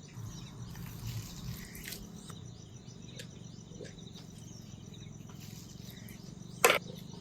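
Outdoor ambience with faint, repeated bird chirps and insect sounds over a low steady hum, broken by one short sharp sound about six and a half seconds in.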